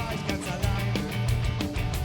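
Rock band playing live, with electric guitar, bass and drums keeping a steady beat.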